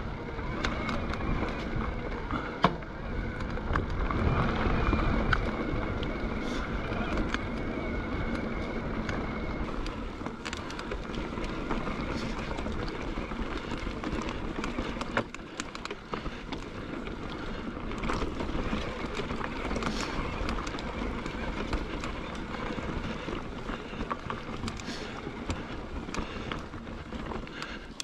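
Mountain bike riding fast down a gravel and rocky trail: a steady rush of tyres rolling over the loose surface, with the bike rattling and sharp knocks as it hits rocks and roots.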